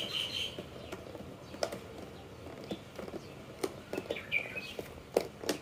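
Clear plastic lid of a takeout food container clicking and crackling in scattered snaps as it is pried open. A bird chirps briefly near the start and again about four seconds in.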